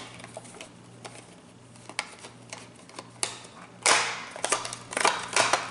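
A face cream's packaging being opened by hand: scattered light clicks and taps, with a short, louder rustle about four seconds in.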